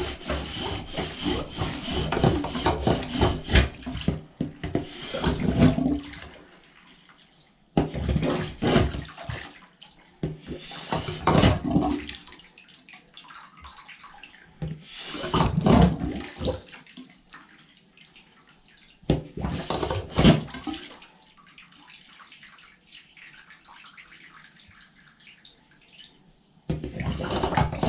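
Water splashing and sloshing in a clogged bathtub as the drain is worked at, in bursts of a second or two with quiet gaps between.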